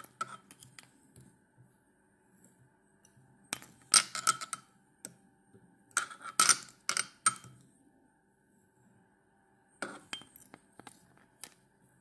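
Small metal fly-tying tools clinking and tapping as a fur dubbing loop is wrapped round the hook, in short clusters of light clicks about four, six and ten seconds in.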